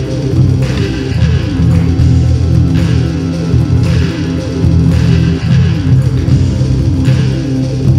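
Background music led by guitar and bass, loud and steady.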